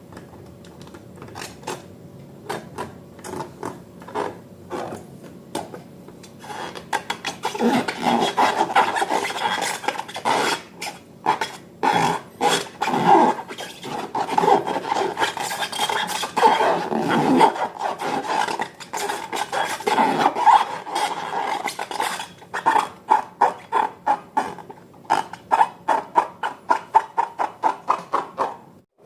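Slime being stirred in a bowl: a utensil clicking and scraping against the bowl. The clicks are sparse at first, get busy about seven seconds in, and turn into a fast run of repeated clicks near the end.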